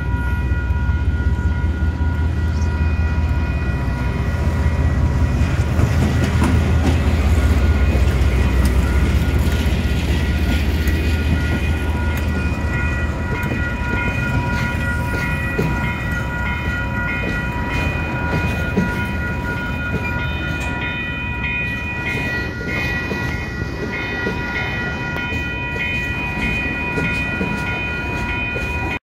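A KiwiRail diesel-hauled freight train passing close by a level crossing: a heavy locomotive engine rumble for the first half, then flat wagons clattering over the rails, with the crossing's warning bells ringing steadily throughout.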